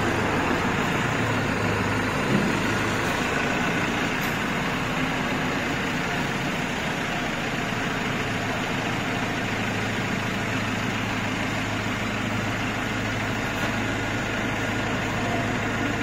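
Steady hum of a wheel-repair vertical CNC lathe's machinery running, with a constant low drone and an even noise over it. No cutting or impacts stand out.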